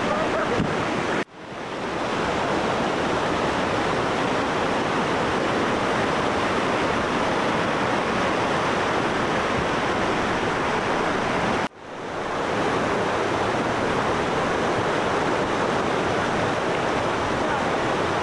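Whitewater rapids of a shallow rocky river rushing with a steady, dense hiss. The sound cuts out abruptly twice, about a second in and about twelve seconds in, and swells back within a moment each time.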